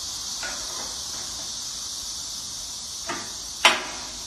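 Small steel conveyor idler rollers being set into slotted steel idler brackets: a few light metal clacks, the loudest near the end, over a steady high hiss.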